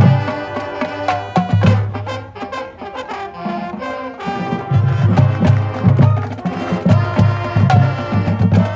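High school marching band playing its field show: brass and saxophones over marching drums and front-ensemble mallet percussion. The music eases off in the middle, then the low end comes back strong with a pulsing beat.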